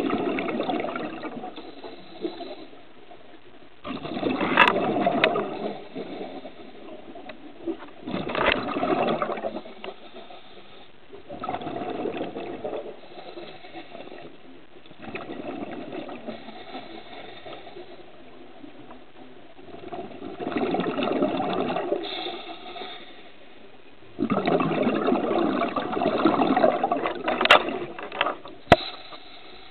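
Scuba diver breathing through a regulator underwater: exhaled bubbles rush out in bursts every four seconds or so, with quieter inhalations between. A couple of sharp clicks near the end.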